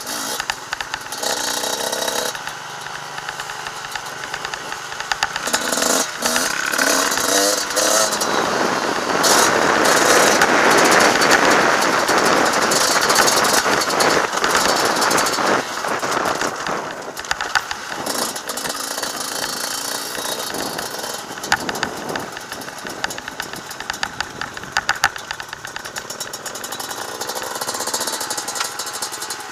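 Off-road motorcycle engine running and revving on a trail ride, its pitch rising and falling with the throttle, with rattling throughout. A louder rushing stretch comes about ten seconds in.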